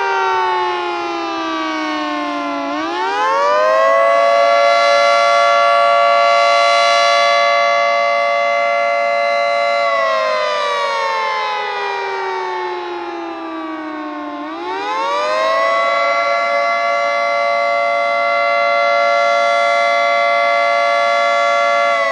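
Federal Signal 2T22A dual-tone outdoor warning siren sounding the attack signal, a slow wail. Its pitch falls to a low point about three seconds in, winds back up and holds steady at the top for about six seconds, then falls and rises again about halfway through, holding high near the end.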